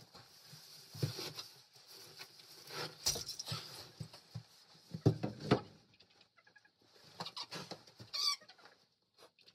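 Irregular scraping, rustling and knocks of a long-handled tool cleaning out bedding on a chicken-coop floor, loudest about five seconds in.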